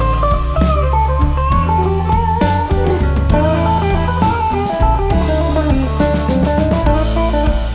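Music: an electric guitar playing a melodic lead with bent notes over bass and drums.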